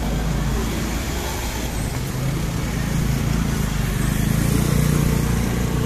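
Road traffic: a motor vehicle's engine running, its low hum growing louder in the second half.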